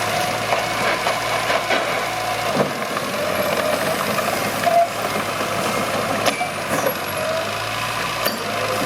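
Mitsubishi BD2H bulldozer's diesel engine running steadily, with a wavering mechanical whine and a few sharp metallic knocks.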